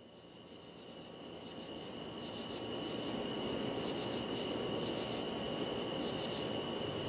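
Chirping insects in short repeated groups over a steady high whine and hiss, fading in gradually from near silence.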